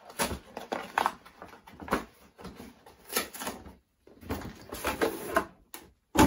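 Handling of a cardboard shipping box and sneaker box: irregular rustling and scraping of cardboard and packing paper, with a sharp thump near the end.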